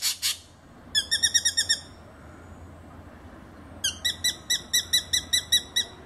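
Hair-crested drongo calling: two loud harsh notes at the start, then a quick run of about eight clear ringing notes about a second in, and a longer run of about fourteen, around seven a second, from nearly four seconds in.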